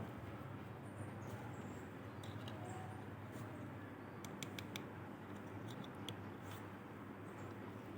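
Light, scattered clicks and taps of small hard-plastic toy animal figures being handled, with a cluster of quick clicks about halfway through, over a steady low hum.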